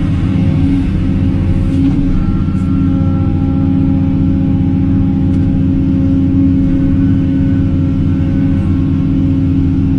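Excavator's diesel engine running steadily, with a few faint steady whining tones above the engine note.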